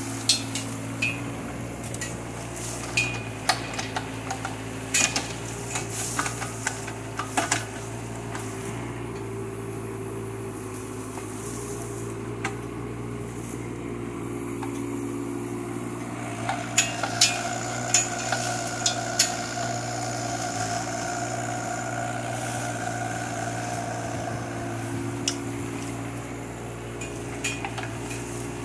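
Kubota K008-3 mini excavator's diesel engine running steadily, with scattered sharp cracks and knocks as its bucket rips bushes and roots out of the ground. A higher steady whine joins the engine for several seconds past the middle.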